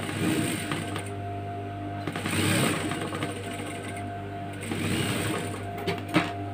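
Industrial single-needle lockstitch sewing machine stitching a seam through cotton fabric in three short runs over the steady hum of its motor, with a sharp click near the end.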